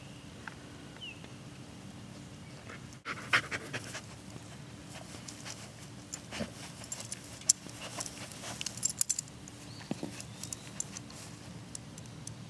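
German Shepherd puppy sniffing and panting close by, in short irregular puffs of breath, with a scattering of faint clicks.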